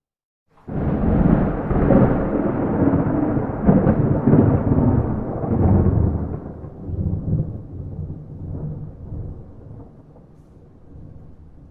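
A single clap of thunder that starts suddenly about half a second in, rumbles and rolls in loud surges for several seconds, then slowly dies away into a low grumble, with no rain.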